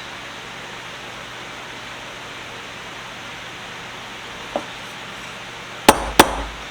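Hammer striking steel: a light tap, then two sharp ringing blows about a third of a second apart near the end, as the bent vise T-handle is straightened. A steady hiss of shop noise sits underneath.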